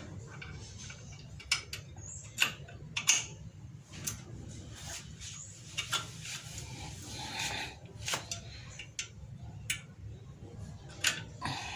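Irregular metallic clicks and clinks as small brake repair-kit parts, clips and pins, are handled and fitted at a car's front brake, over a steady low hum.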